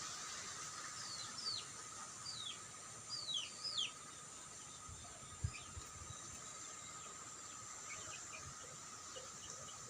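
A bird calling about six times in quick, downward-sliding chirps between about one and four seconds in, over a steady high-pitched drone. A few soft low thumps come near the middle.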